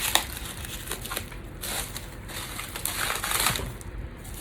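Packaging being handled as the forge is unwrapped: irregular rustling and crinkling with a few small knocks.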